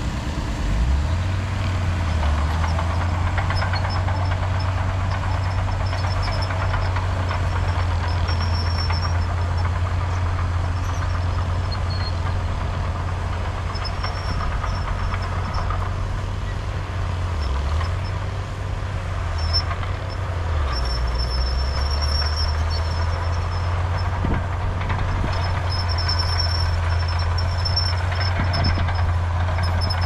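Heavy diesel engine of earthmoving machinery running steadily under load, its pitch shifting about a second in and dipping briefly twice past the middle.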